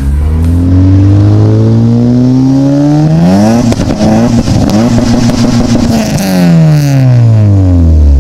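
Supercharged 2014 Honda Civic Si's 2.4-litre four-cylinder revved hard through a loud 3-inch exhaust with a blown-out muffler and no added resonator: the engine climbs steadily for about three seconds, is held high for a few seconds, then falls back toward idle near the end.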